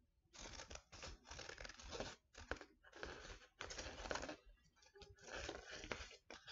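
Scissors snipping through a folded sheet of paper, a run of short cutting strokes with brief gaps between them.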